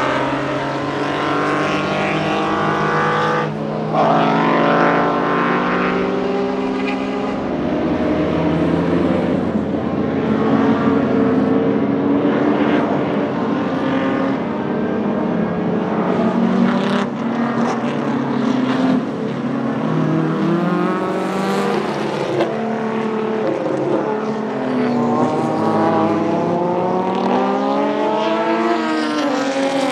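Group 2 touring-car engines revving up and down through gear changes as several cars pass at racing speed, their notes overlapping; a Ford Capri RS 3100's 3.4-litre Cosworth GAA V6 is among them. A sharp crack about three and a half seconds in.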